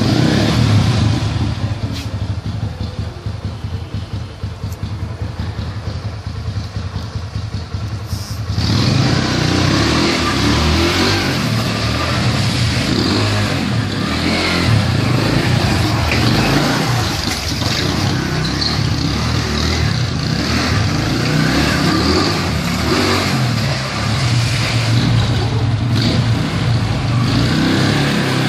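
Sport quad bike's engine idling with a steady drone, then from about a third of the way in it is opened up and runs under throttle as the bike is ridden around, its note rising and falling.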